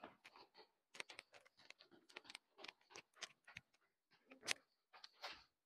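Faint, quick, irregular taps of footsteps on stair treads, several a second.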